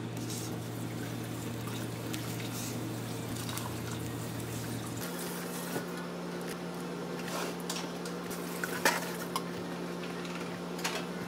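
Steady low hum of kitchen room tone that shifts to a higher hum about halfway through, with soft handling noises from dessert pieces and a plate being worked by gloved hands, including a few light clicks and taps in the second half.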